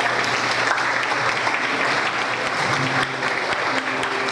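Audience applauding, a dense patter of many hands clapping. About two-thirds of the way through, a few held musical notes begin to sound under the applause.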